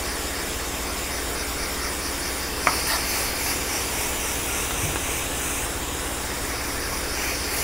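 Hand-held water spray nozzle hissing steadily as it mists a tray of germinating pea microgreens, an extra-long watering to keep the roots from going dry. One faint click about two and a half seconds in.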